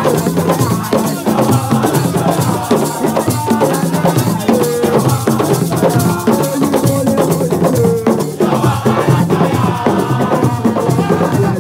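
Percussion music: drums and shakers play a busy, steady rhythm, with a held melodic line above.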